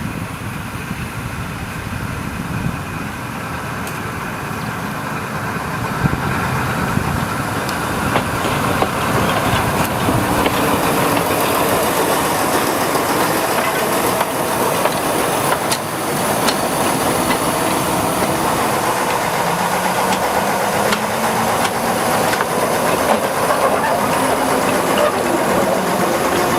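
Engine of a Krupp D300 diesel-hydraulic shunting locomotive running, growing louder over the first ten seconds and then holding steady, with a hiss and a few sharp clicks.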